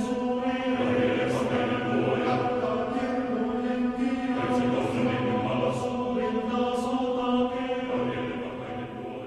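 Background music: a choir chanting in long sustained phrases over a steady held low note, easing off slightly near the end.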